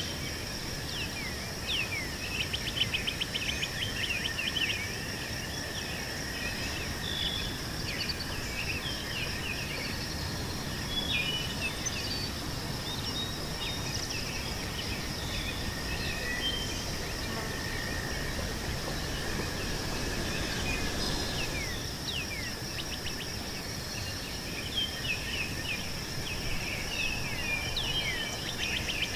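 Meadow ambience: insects keep up a steady high-pitched trill throughout, while birds chirp and call in quick bursts, busiest in the first few seconds and again near the end.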